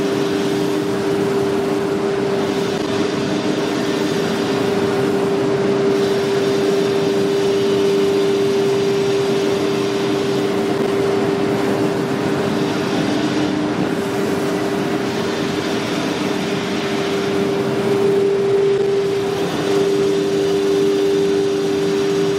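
CNC router spindle running with a steady high whine while the bit carves door-panel patterns into an MDF sheet. A rushing cutting noise swells and fades every few seconds as the tool moves.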